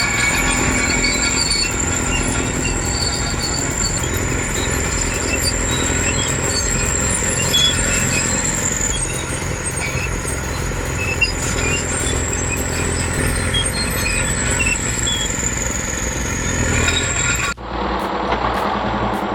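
Heavy machine's engine running steadily under a constant high whine. It changes abruptly near the end to a different steady machine sound.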